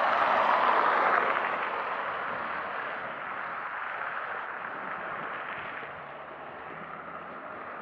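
A small van drives past close by on wet asphalt, its tyre and engine noise loudest in the first second and then fading away. A steady, quieter hiss follows.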